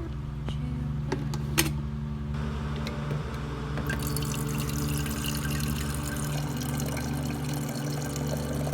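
Electric drip coffee maker with water running and trickling over a steady low hum. A few sharp clicks come in the first two seconds, and the watery hiss grows fuller about four seconds in.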